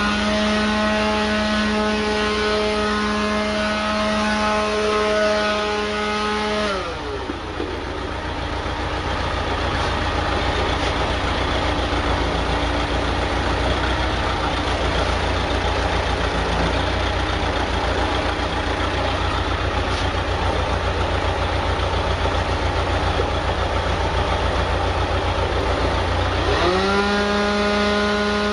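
Dual-fuel diesel generator engine running steadily on wood gas, with a steady low firing pulse. Over it a pitched machine whine winds down and stops about seven seconds in, then winds back up and runs again near the end.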